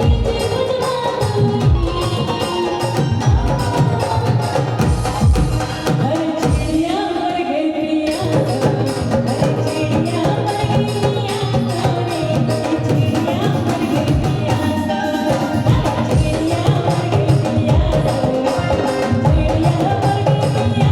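Folk song: singing over a steady rhythm of hand-drum beats.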